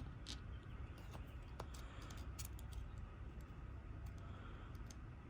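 Faint, scattered light clicks and ticks from a key and small lock parts being handled while its bitting is read, over a low steady room hum.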